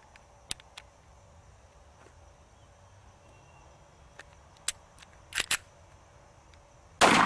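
Sparse small clicks and clacks of a semi-automatic pistol being handled, its slide jammed out of battery after being gripped while firing, with a sharper double clack about five and a half seconds in as it is worked. A sudden loud noise right at the end.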